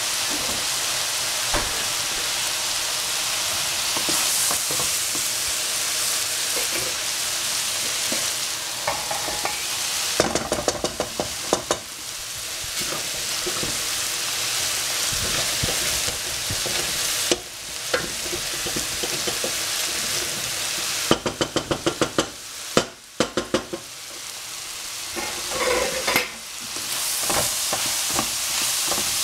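Cabbage, pork and peppers sizzling steadily in a nonstick frying pan while being stir-fried. Two runs of rapid wooden knocks come about 10 seconds in and again about 21 seconds in, with a few single knocks between.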